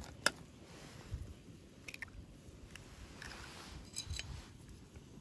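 Two sharp taps at the start, then scattered small clicks and soft squishy handling sounds: eggs being cracked and handled for cooking on a camp stove.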